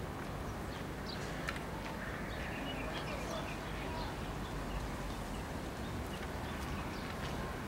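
Rail-yard ambience: a steady low rumble, with scattered short high chirps and ticks over it.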